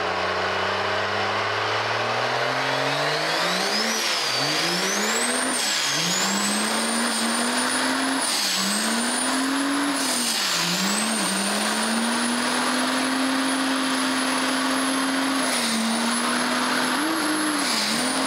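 Diesel pickup truck doing a burnout, its rear tyres spinning in a cloud of smoke. The engine revs up over the first four seconds, then is held high with a few brief dips in revs, and a high whistle rises and falls with it.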